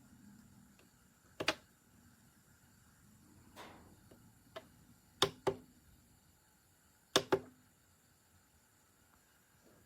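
Hard plastic clicks and knocks, mostly in quick pairs, three times, with a single softer click and a short brushing rub between them. These are the sounds of a plastic UV/LED nail lamp being handled.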